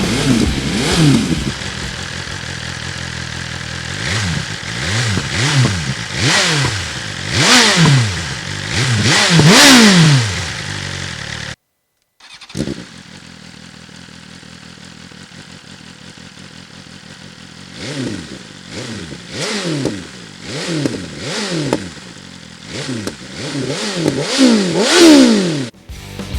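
2020 BMW S1000RR inline-four sport-bike engine revved hard in repeated sharp throttle blips, each rising fast and falling back to idle. There is a brief cut at about 12 s, then it idles steadily for a few seconds before more quick blips.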